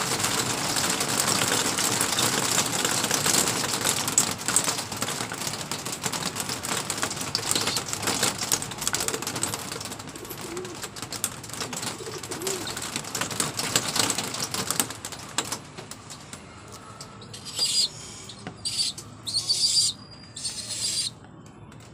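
Racing homer pigeon's wings flapping and feathers rustling while the bird is held in the hand: a dense crackle for the first fifteen seconds or so, then a few short separate rustles near the end.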